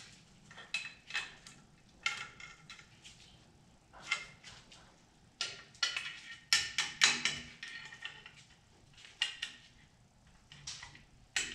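Irregular metallic clinks and taps of pliers and brake hardware against a Ford F-150's rear drum brake backing plate and shoes during reassembly, with a cluster of louder clinks about six to seven seconds in.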